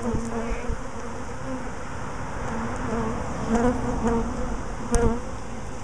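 A swarm of honeybees buzzing close around the microphone, single bees flying past with a wavering hum that swells and fades. A short knock about five seconds in.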